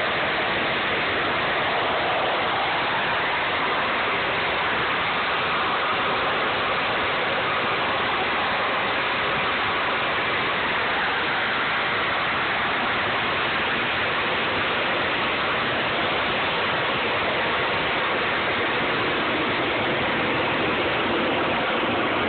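Harrier jump jet hovering, its jet engine giving a loud, steady, continuous rush of noise.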